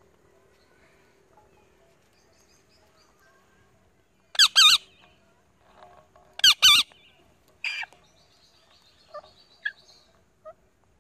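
Parrots calling: two loud, wavering double screeches about two seconds apart, a shorter screech after them, then a few soft chirps near the end.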